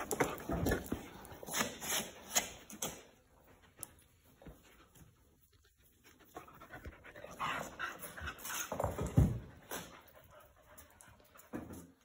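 A dog panting and snuffling close to the microphone, in irregular bursts with a quieter spell in the middle.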